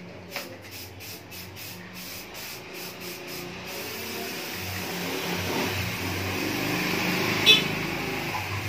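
Aerosol can of clear-coat paint being shaken, its mixing ball rattling about three times a second. Then comes a steady spray hiss as the clear coat is sprayed onto a bicycle rim, growing louder, with one sharp click near the end.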